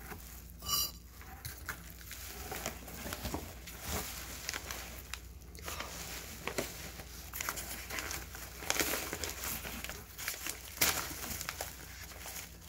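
Newspaper packing being crumpled and pulled out of a shipping box, with continual irregular crinkling and rustling as the plants are unwrapped by hand.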